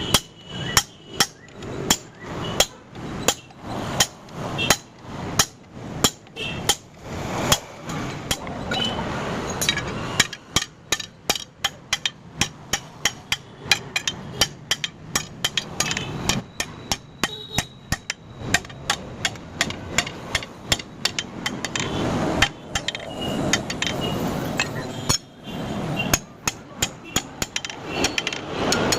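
Blacksmith's hammer striking steel being forged into a crowbar, in a steady run of ringing blows, about two a second at first and quickening to three or four a second partway through, with a couple of short pauses near the end.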